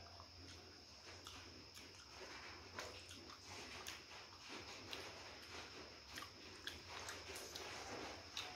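Close-up eating sounds of fried chicken being torn apart by hand and chewed: soft crunching, mouth noises and many small scattered clicks and crackles, over a faint steady hum.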